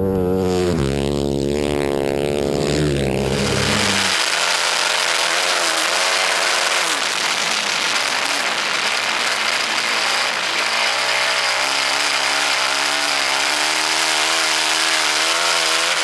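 Yamaha flat-track motorcycle engine running hard, its pitch rising and falling. From about four seconds in it is heard from a camera mounted on the bike, with heavy wind rush over the engine.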